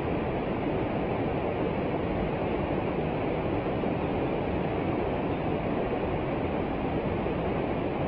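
Small mountain stream cascading over boulders: a steady, full rush of white water, deep and even, with no changes.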